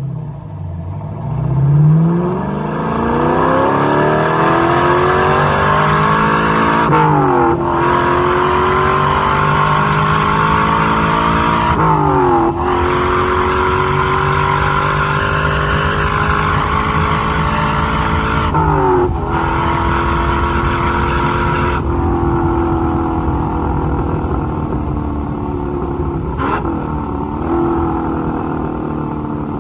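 1962 Chevrolet Corvette's small-block V8 accelerating through the gears. The engine pitch rises, then drops sharply at gear changes about 7, 12 and 19 seconds in, and settles to a steady cruise with two brief blips of the throttle near the end.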